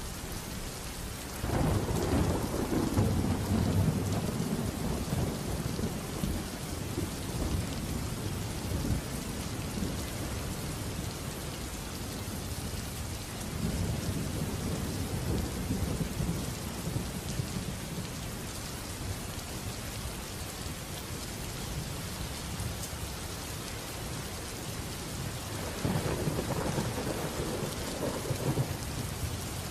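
Steady rain with thunder rolling three times: a loud rumble starting about a second and a half in and lasting several seconds, a weaker one around the middle, and another near the end.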